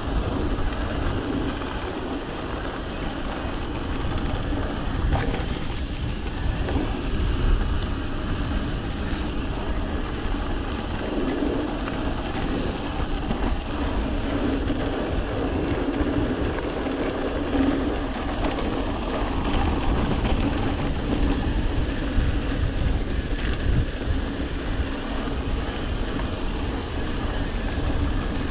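Mountain bike rolling along a dry dirt singletrack: steady tyre noise on the dirt, with scattered small clicks and rattles from the bike and wind rumbling on the microphone.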